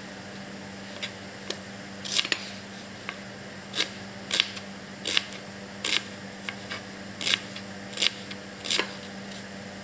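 Kitchen knife chopping an onion on a plastic cutting board: sharp chops, a few light ones in the first two seconds, then a steady run of about one every three-quarters of a second, over a faint steady hum.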